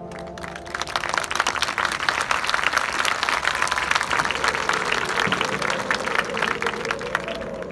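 Audience applause rising just after a marching band's sustained brass chord cuts off, with dense clapping from a large crowd in the stands.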